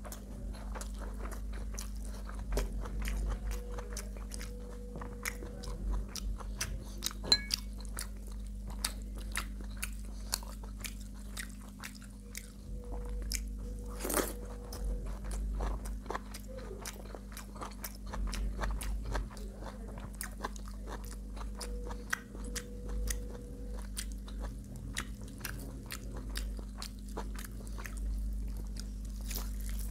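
A person eating close to the microphone: crunching bites and wet chewing with many short clicks and smacks all the way through, over a steady low hum.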